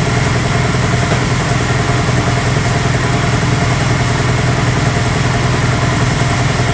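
Lagun vertical milling machine running steadily with a low hum while it mills a piece of steel key stock clamped in the vise.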